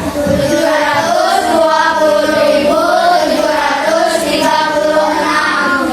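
A row of children reading a six-digit number aloud in unison, seven hundred twenty thousand seven hundred thirty-six, in a drawn-out, sing-song classroom chant.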